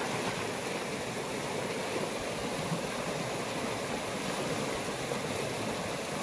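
Shallow river rushing steadily over a rocky riffle.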